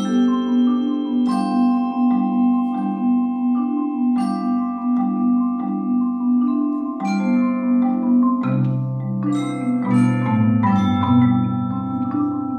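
Marimba ensemble playing: a repeating figure of struck low notes with longer ringing notes above. Deeper bass notes join about eight and a half seconds in.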